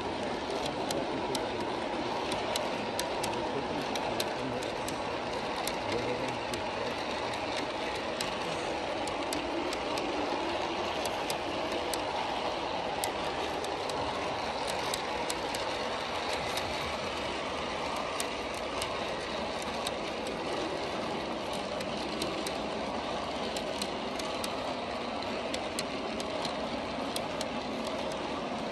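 A long G scale model freight train of hopper cars rolling past on outdoor track: a steady rumble of wheels on rail, with frequent sharp clicks.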